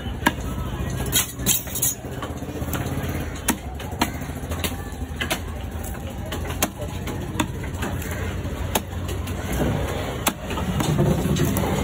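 Heavy cleaver chopping through a fish into steaks on a wooden chopping block: sharp knocks at irregular intervals, roughly once a second, over a steady low rumble.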